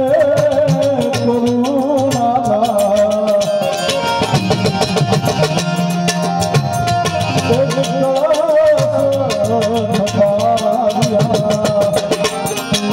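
Gujarati santvani devotional folk music: a wavering melody line with vibrato over steady, dense percussion.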